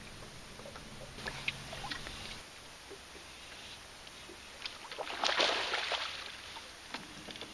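Water sloshing and lapping around a bass boat, with a louder burst of splashing about five seconds in while a hooked fish is fought on a bent rod. A low steady hum runs through the first two seconds or so.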